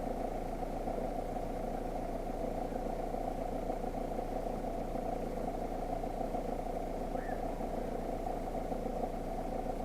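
A steady engine hum that holds one pitch throughout.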